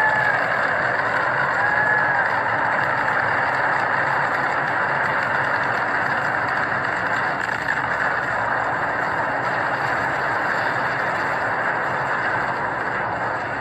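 A loud, steady rushing noise with no speech over it. A few short chirp-like tones come in the first two seconds.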